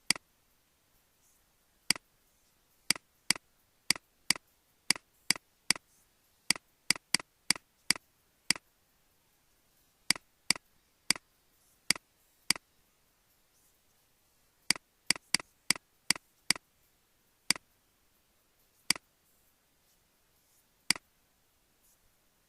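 Computer mouse clicking: short, sharp single clicks at irregular intervals, some in quick runs of two or three, over a near-silent room.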